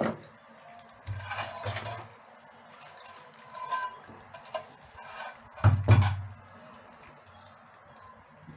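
A wire-mesh steel strainer knocking and clattering against a karahi of hot frying oil as fried laccha semai is lifted out. There is a sharp knock at the start, a stretch of clatter a second in, and the loudest clatter about six seconds in, over a faint sizzle of frying oil.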